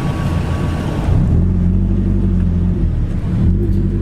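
Lotus Elise's engine through its aftermarket Larini exhaust, heard from inside the cabin as the car creeps along at low speed. It runs as a low rumble and settles into a steadier drone about a second in.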